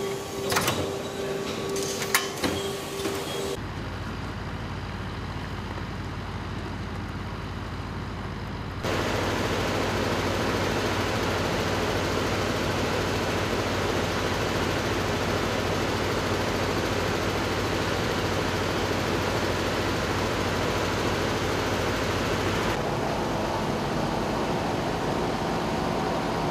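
Workshop machinery with a steady hum and a few sharp clicks, then the steady engine noise of a truck-mounted crane, markedly louder from about nine seconds in.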